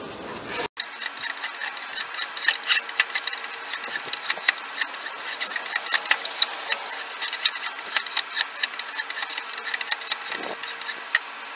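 Hand file rasping across the edge of a hickory spatula handle in quick, short strokes, rounding its corners.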